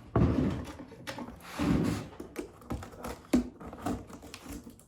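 Cardboard boxes and packaging being handled: rustling and scraping with a few sharp knocks and taps.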